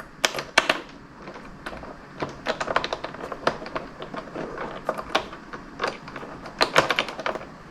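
Flat washers and long bolts being handled and set in place on the luggage rack: irregular sharp clicks and light taps, some in quick clusters, the busiest near the middle and near the end.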